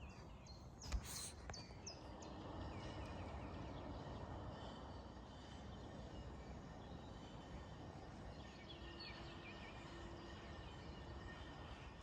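Faint outdoor background hum with birds chirping now and then: short high calls in the first few seconds and again in the middle.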